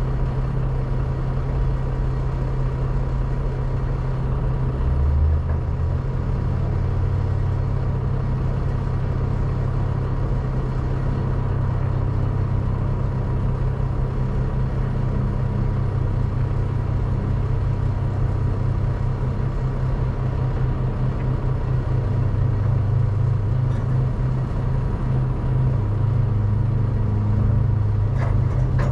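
Diesel engine of a semi truck idling steadily, a continuous deep rumble with a faint steady whine above it.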